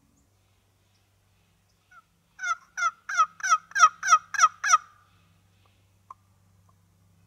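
Turkey yelping: a run of about eight quick yelps, roughly three a second, each note falling in pitch, lasting about two and a half seconds.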